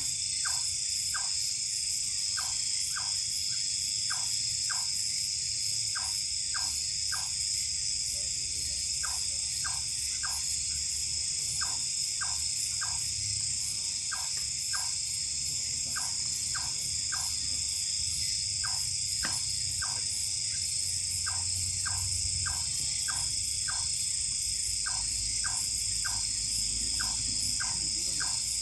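Night chorus of crickets and other insects: a steady high shrill, with short chirping calls repeated in quick groups of two to four throughout.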